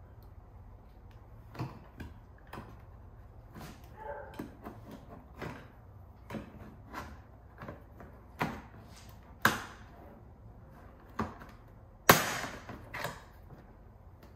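Plastic clips of a Range Rover L405 rear bumper trim piece snapping and cracking as a trim panel tool pries the piece off: a string of sharp, irregular snaps, terrifying sounding. The loudest is a crack near the end with about a second of scraping crackle after it. The clips are coming free without breaking.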